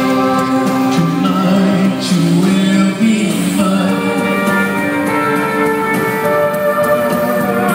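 Live rock band playing, with a man and a woman singing together over the band.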